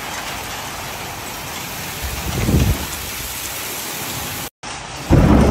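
Heavy rain mixed with hail pelting down in a steady hiss. A low rumble comes about two seconds in, and a louder, longer one starts near the end after a brief cut-out.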